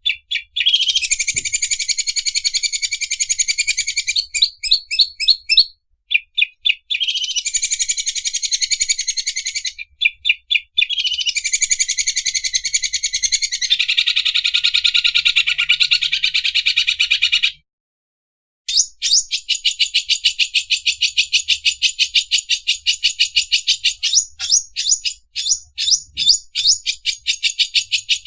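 Greater green leafbird (cucak ijo) singing its 'mesin obras' song: long, fast, rattling trills of rapidly repeated high notes, like an overlock sewing machine. After a short break a little past halfway, it goes on in a stream of quick, evenly spaced notes.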